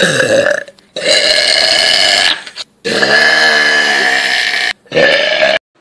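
A person burping loudly four times in a row, each burp long and drawn out, the longest nearly two seconds. Each burp stops abruptly.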